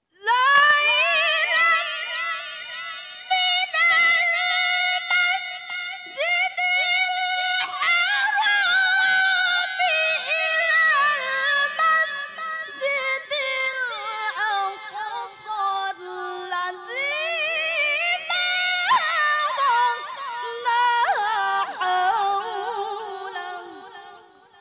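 Female qoriah reciting the Qur'an in melodic tilawah style into a handheld microphone: one high voice in long held, ornamented phrases, starting abruptly and trailing off near the end.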